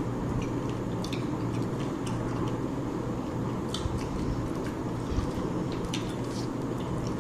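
Eating sounds: scattered soft, wet squishes and small clicks of food being handled and chewed, over a steady low hum.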